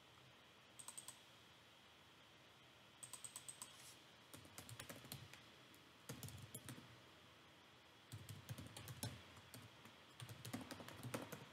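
Faint typing on a computer keyboard: short runs of rapid keystrokes with pauses between them, as an email address is entered.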